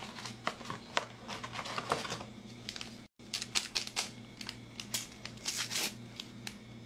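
Close-up rustling and crinkling of plastic being handled, with many sharp clicks and taps, over a faint steady hum. The sound drops out completely for an instant about three seconds in.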